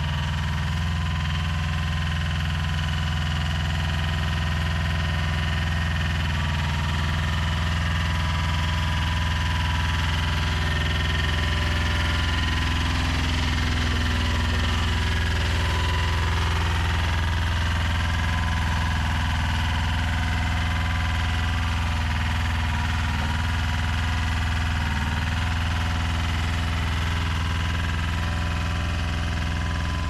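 A mini skid steer's two-cylinder Koop diesel engine running at a steady speed.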